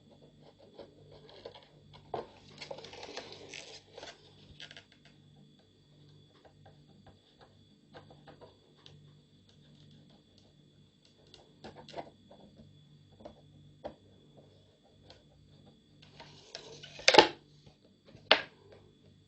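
Light clicks, taps and crinkles of a plastic bottle being handled while its edges are fused shut with a soldering iron, with two sharp clicks near the end over a faint steady hum.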